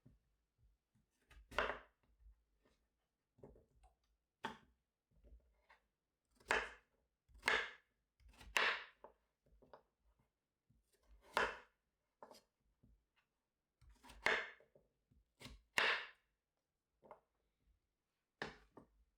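Knife cutting through vegetables onto a cutting board in slow, irregular strokes, about nine firm cuts with small clicks and taps between them.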